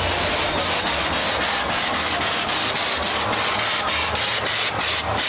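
Helicopter rotor and engine noise, loud and steady, with a low hum and an even beat about four to five times a second from the rotor blades.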